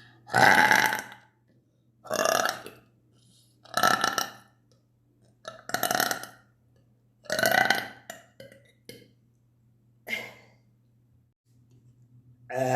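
A woman burping deliberately over and over, a loud burp about every one and a half to two seconds, with weaker ones around nine and ten seconds in.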